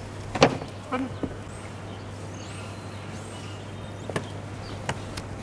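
A fishing magnet and its rope being handled as they come in: a sharp knock about half a second in, then a few lighter clicks. Faint bird calls sound between them.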